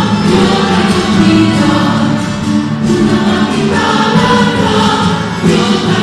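Music for the Chilean gato folk dance, a song with singing voices.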